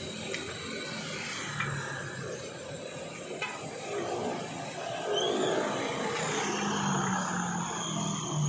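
Steady street traffic with a vehicle engine hum that gets louder about five seconds in, and a couple of light metallic clicks.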